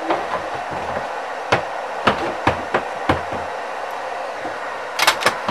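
Small sharp clicks and taps of a soldering iron and fingers working on a circuit board while a jumper wire is soldered on, about eight in all with two close together near the end, over a steady rushing background noise.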